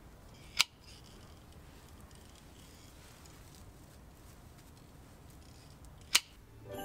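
Two sharp snips of hand pruning shears cutting through shrub stems, one about half a second in and the other near the end, over a faint steady background hiss.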